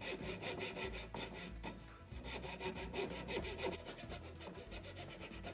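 Coping saw cutting across a wooden board with quick, steady back-and-forth strokes, a rasping sound on every stroke.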